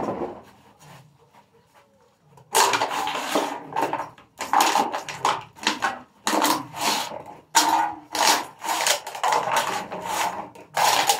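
Rustling and clattering of recyclables being handled and sorted, in a run of short bursts about one a second, starting about two and a half seconds in.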